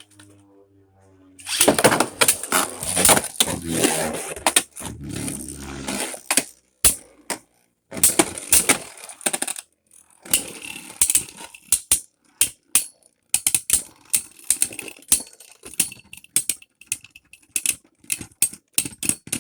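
Two Beyblade Burst spinning tops, Helios Volcano and Mirage Fafnir, battling in a plastic stadium. A dense clatter of rapid hits starts about a second and a half in, once the tops are launched. After several seconds it thins into scattered clicks and knocks as the tops collide less often.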